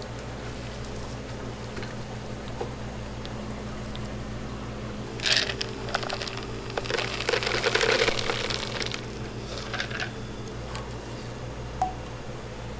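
Pine nuts tipped from a bowl into a plastic blender jar, rattling and pattering against the jar for about three seconds in the middle, with a few lighter clicks after, over a steady low hum.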